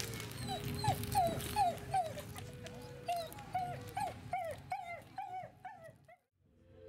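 A dog yapping over and over in short yelps that rise and fall in pitch, about three a second, over the crackle of a fire. It fades out near the end.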